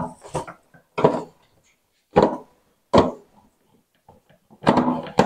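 Screwdriver working the screws out of a plastic room heater's side cover: a handful of short separate knocks and clicks, roughly one a second.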